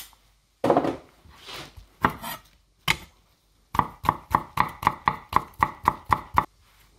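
A kitchen knife drawn a few times along a honing steel, then a run of about a dozen quick knife chops through a spring onion onto a wooden chopping board, about four a second.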